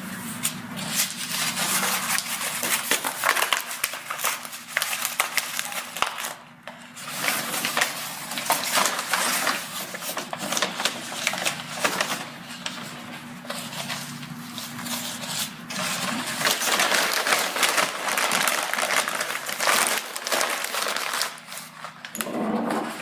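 Dense crackling and crinkling noise, full of small irregular clicks, over a steady low hum. It swells and fades, with a brief drop about six seconds in.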